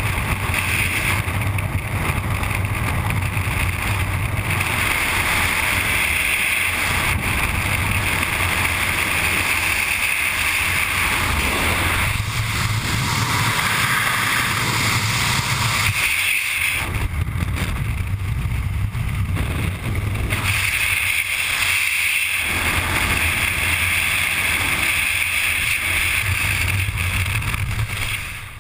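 Freefall wind rushing over a helmet-mounted action camera, a loud, steady roar that swells and eases a little. It drops off sharply near the end as the parachute opens and the fall slows.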